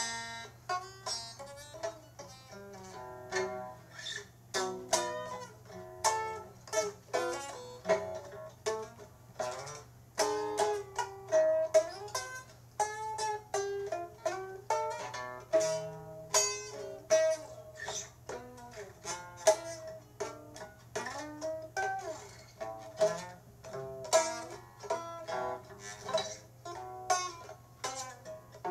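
Music on a plucked string instrument: a melody of notes picked one after another, each ringing briefly and dying away, with a faint steady hum beneath.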